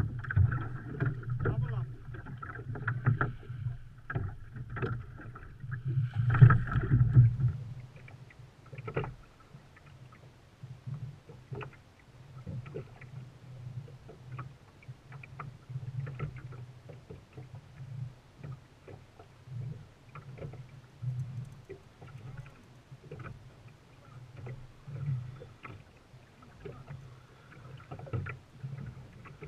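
Low steady hum of a boat's motor with scattered knocks and clicks, louder for the first seven seconds or so.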